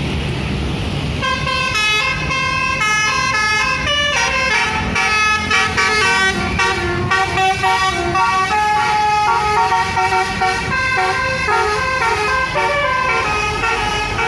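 Indonesian bus 'telolet' musical horn playing a tune of quick, stepped notes, starting about a second in, over the rumble of the bus's engine.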